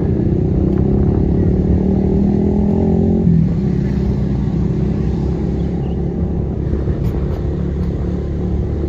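Motorcycle engine running under way, heard from the rider's seat over steady road rumble; its note climbs for about three seconds, then drops and carries on lower.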